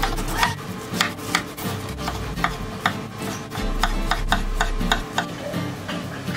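Chef's knife cutting pineapple on a plastic cutting board: rasping strokes through the fruit and repeated sharp clicks of the blade meeting the board, several a second.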